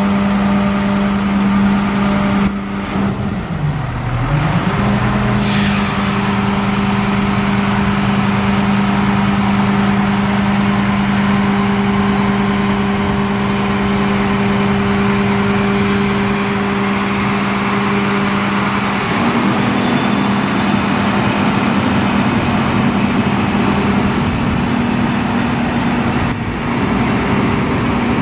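Diesel engine of a 2002 Sterling LT8500 rear-loader garbage truck running at steady raised revs, driving the body's hydraulics as the tailgate is lowered. A few seconds in, the revs sag briefly and climb back, and the engine note shifts again about two-thirds of the way through.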